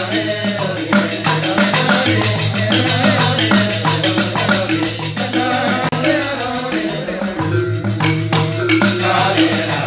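Balinese genjek ensemble performing: men's voices singing and chanting to a fast, even beat of jingling small cymbals (ceng-ceng) and bamboo tube percussion, over a deep pulsing bass that drops out briefly about two-thirds of the way through.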